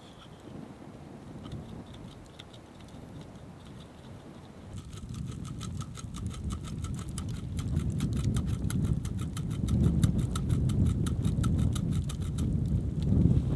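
A small knife blade scraping the edge of a freshly carved wooden cutting board in a fast, even run of short strokes, starting about five seconds in and stopping near the end. Under it, wind buffets the microphone, growing louder toward the end.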